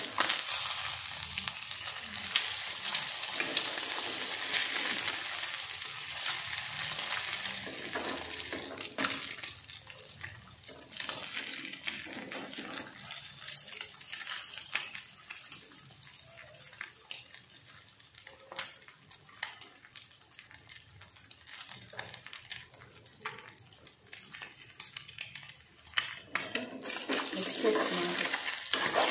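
Eggs sizzling in hot oil in a metal kadai while a steel spoon scrapes and knocks against the pan as the fried eggs are flipped and broken up. The sizzle is loudest in the first ten seconds, dies down through the middle, and picks up again near the end as the eggs are stirred.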